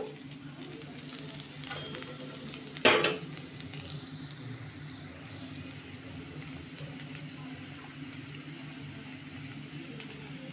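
Fried potatoes sizzling quietly in a hot metal kadai, with one sharp metallic clank about three seconds in.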